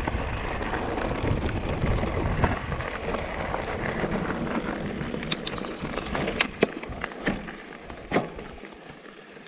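Mountain-bike ride noise on a rough track: wind buffeting the microphone over the rumble and rattle of the bike. The rumble fades over the second half as the bike slows, with a handful of sharp clicks and knocks.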